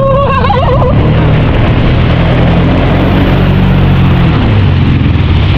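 Jet ski engine running steadily at speed while towing, over the rush of wind and churning wake water. The engine note rises slightly in the middle and settles again.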